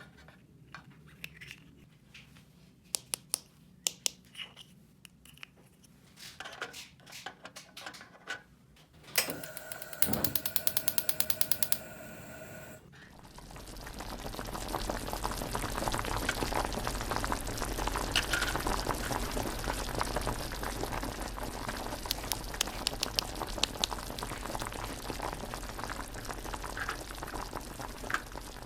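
Small plastic toy parts clicking and tapping, then a quick, even run of ratchet-like clicks for about two seconds. After that, water runs steadily for the rest, the loudest part.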